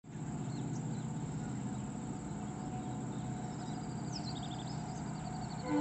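Birds chirping, a quick run of repeated high notes about halfway through, over a steady low rumble. Right at the end a loud steady horn-like tone begins.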